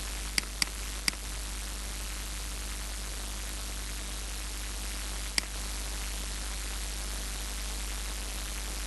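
Computer mouse clicks: a quick double click, a third click about a second in, and a single click a few seconds later. Under them run a steady microphone hiss and a low mains hum.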